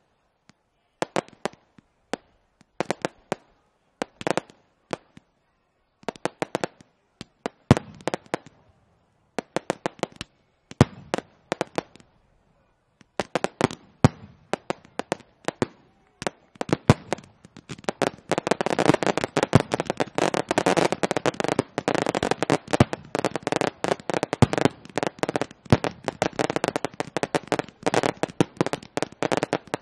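Fireworks display: launch thumps and aerial bursts going off as sharp bangs, first in scattered clusters with short gaps, then from about 18 seconds in as a dense, almost unbroken barrage.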